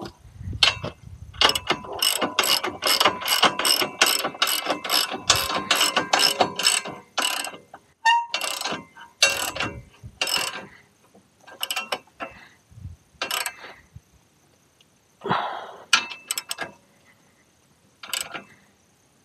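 Half-inch drive ratchet with an 18 mm socket clicking as mounting bolts are tightened down. It runs in a steady, even string of clicks for several seconds, then goes on in shorter spurts with pauses between.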